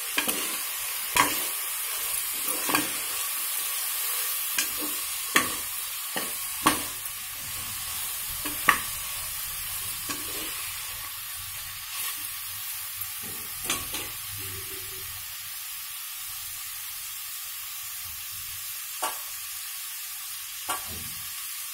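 Vegetables frying in hot oil in a pressure cooker, giving a steady sizzling hiss, while a metal spoon stirs them with sharp clinks and scrapes against the pot, often in the first half and only now and then later.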